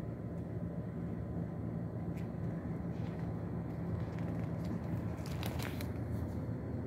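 A stamp-album page being turned: a few light clicks, then a cluster of crinkling crackles about five seconds in, over a steady low hum.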